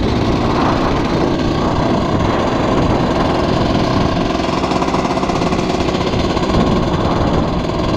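KTM dirt bike engine running while the bike is ridden along the road, a rapid steady pulsing with a rushing low rumble of wind on the microphone. The engine is still being run in.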